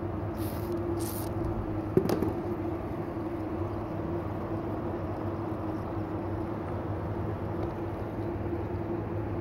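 Steady mechanical hum with a constant mid tone and a low drone. Two short high hisses come in the first second or so, and a single sharp knock about two seconds in.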